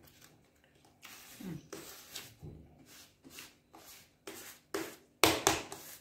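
Mouth sounds of eating: chewing and lip smacking in a string of short noisy bursts, the loudest near the end, with a brief falling hum about a second and a half in.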